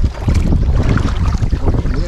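Wind buffeting the microphone with a steady low rumble, over the water sounds of a kayak being paddled.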